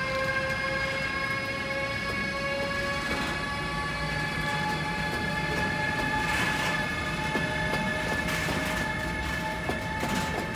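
A train hauled by a Siemens Vectron-family electric locomotive running past, with a steady whine of several tones that drift slowly in pitch over the rolling noise of the train. A few louder clattering swells come in during the second half.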